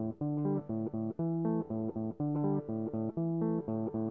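Background music: a plucked guitar riff over a bass guitar, in a steady repeating rhythm.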